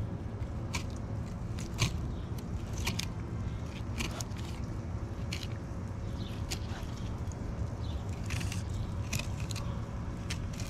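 Fillet knife slicing a redfish fillet off the backbone, with irregular crunching and scraping clicks as the blade works along the bones, over a steady low rumble.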